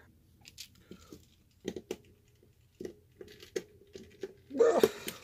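Small tool-on-plastic clicks and taps as a tiny screwdriver works at the screws of an electric pepper grinder's plastic housing, several light ticks a second or so apart. Near the end comes a louder, rougher scuffing noise of about half a second.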